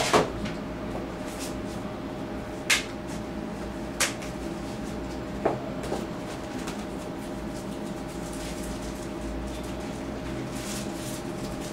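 Five short knocks and clicks in the first six seconds, the first the loudest, from things being handled while someone rummages for a card, over a steady hum.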